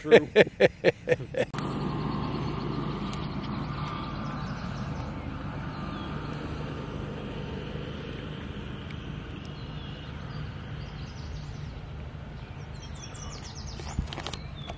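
A man's short burst of rhythmic laughter, then a steady low hum of open-air background noise with a few faint bird chirps. A single click comes near the end.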